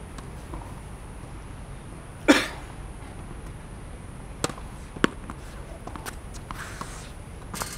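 Tennis ball impacts during wall practice: one loud hit about two seconds in, then a few lighter knocks spaced about half a second to a second apart.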